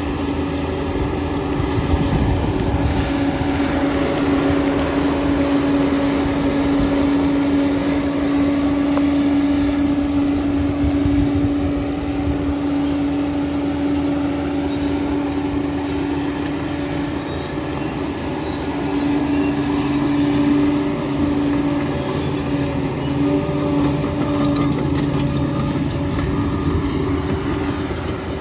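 Liebherr PR 746 crawler dozer running as it works, its diesel engine holding a steady note, with the rattle of its steel tracks underneath. The engine note shifts about two-thirds of the way through.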